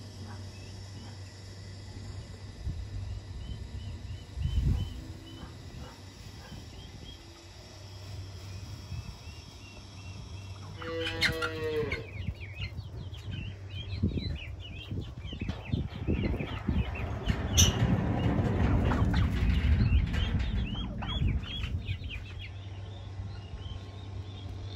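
Farmyard animals: a cow moos once about eleven seconds in, over many short high chirps from birds or poultry. A steady low hum runs underneath, and there is a louder stretch of rustling and knocks in the second half.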